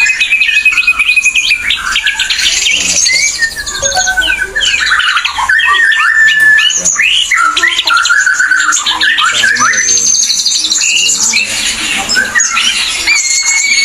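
Ashy drongo singing nonstop: a fast medley of clear whistles, rapid chattering trills and notes sliding up and down in pitch, some held steady for a moment.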